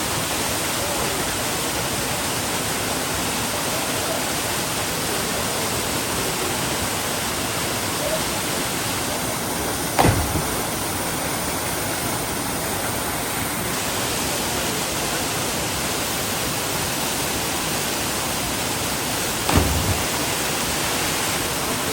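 Waterfall rushing, a steady, even noise. Two brief thumps come through it, one about halfway and one near the end.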